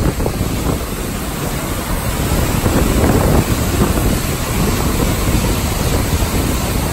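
Whitewater of a steep mountain creek cascade rushing loudly and steadily over the rocks.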